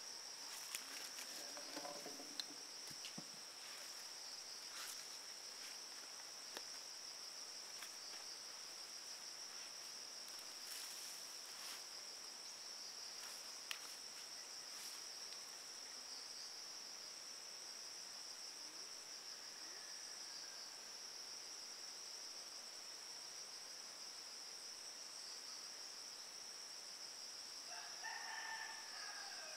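Insects chirring steadily in a high tone, with a few sharp ticks, and a rooster crowing once near the end.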